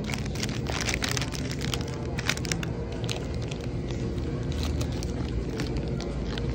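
A plastic candy wrapper crinkles in a hand for the first three seconds or so, over the steady low hum of a convenience store.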